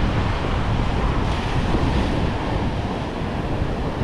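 Ocean surf washing onto the beach, a steady rushing noise, with wind buffeting the microphone.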